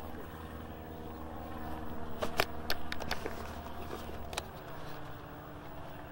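Handling noise from a camcorder being carried and moved: a cluster of sharp clicks and knocks in the middle, over a steady low hum.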